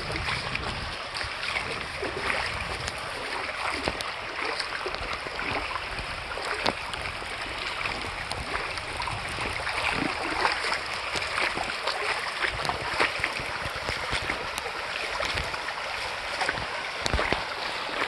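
Shallow creek running over a gravel bed in a steady babble, with scattered small clicks and splashes.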